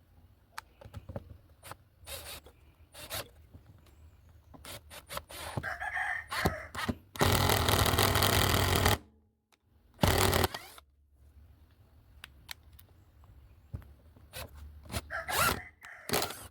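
Bosch GDR 120-Li 12V cordless impact driver driving a 2-inch countersunk steel wood screw into wood: a loud, steady run of rapid hammering for about two seconds, then a short final burst about a second later, with small handling clicks before it.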